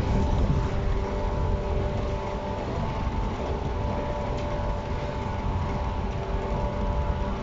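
A JR East 115 series electric train standing at a platform with its doors open, its on-board equipment giving a steady hum and low rumble with a few steady whining tones.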